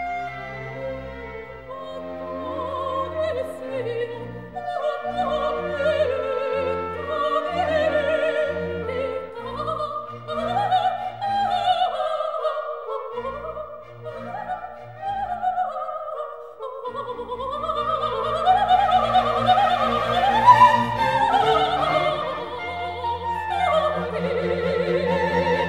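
Classical aria for soprano, clarinet and string orchestra playing, with a melody moving over the strings; the orchestra grows fuller and louder about two-thirds of the way in.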